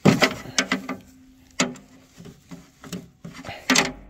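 Metal hand tools clinking and knocking on the steel top of an excavator's hydraulic tank as a screwdriver is taken up to pry off the stuck tank cover: irregular sharp knocks, the loudest at the very start and near the end.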